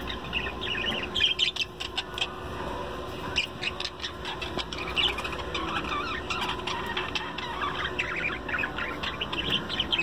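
A flock of caged budgerigars chirping and chattering: many short, rapid calls overlapping continuously over a faint steady hum.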